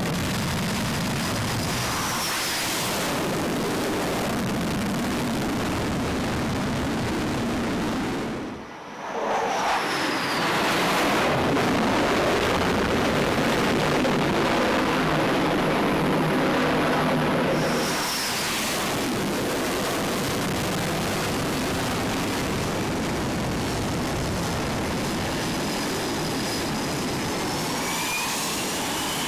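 F/A-18 Super Hornet jet engines running at high power on a carrier flight deck during launches: a loud, steady jet noise with a high engine whine over it. The sound drops out briefly about eight seconds in, then comes back louder for several seconds before settling.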